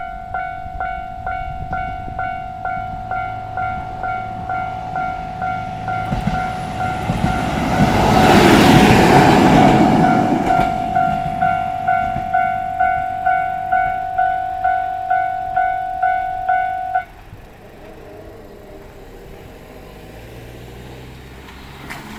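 Japanese level crossing's electronic warning bell ringing at about two strokes a second, the crossing closed for a train. A train runs through, loudest about 8 to 10 seconds in. The bell stops suddenly about 17 seconds in as the crossing clears.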